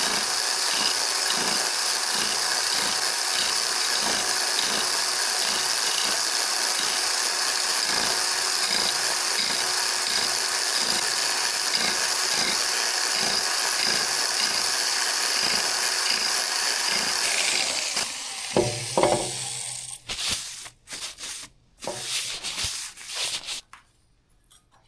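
Electric reciprocating power scraper (Biax type) running with its blade scraping the metal gib of a Bridgeport mill in a steady, pulsing rhythm of strokes, taking down high spots to bring the surface flat. The motor stops about 17 seconds in, followed by a few knocks and clatter as the tool is set down.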